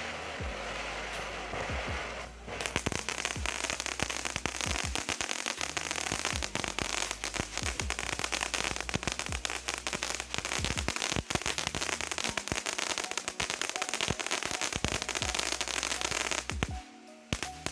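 Mount Magma fountain firework spraying with a steady hiss, then breaking into dense, rapid crackle about two and a half seconds in, the crackle ending the fountain. The crackle runs on with a brief lull near the end.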